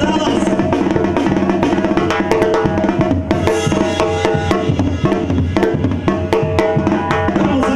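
Live Mexican banda music: trumpets, trombones, clarinets and tuba playing over a busy beat of snare and bass drum.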